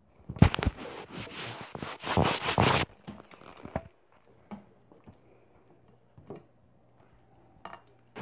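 Cooked pinto beans in their liquid being poured out of the Instant Pot into a bowl: a wet scraping and splashing with a few knocks for about three seconds, then scattered light clinks.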